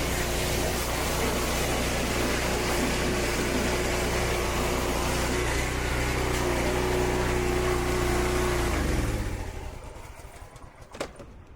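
Push mower's small single-cylinder engine running steadily at one speed, in good running order after the repair. About nine seconds in it is shut off and winds down to a stop, and a single sharp click follows near the end.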